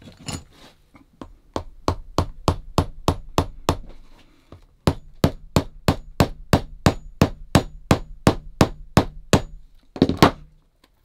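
A shoemaker's hammer tapping a lemonwood shoe peg down through the leather rand and sole into the last. The light, quick blows come about four a second, with a short pause near the middle, and a louder knock comes near the end.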